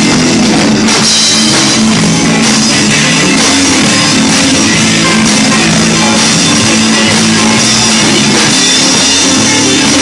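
Live rock band playing an instrumental stretch with no singing: electric guitars, bass guitar and drum kit, loud and steady.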